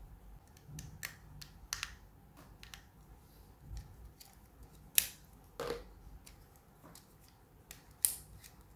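Scattered plastic clicks and taps of a mobile phone being opened by hand, its back cover and battery unclipped and handled. The two sharpest clicks come about five seconds in and near the end.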